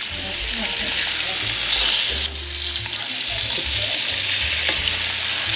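Breaded cube steaks frying in a pan with a steady sizzle, which swells briefly and then drops off sharply about two seconds in.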